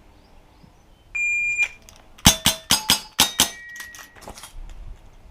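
A shot timer beeps once, then a CO2 airsoft revolver (Dan Wesson 715) fires a rapid string of five or six shots about a quarter second apart, with metallic ringing after several of them from hits on steel targets.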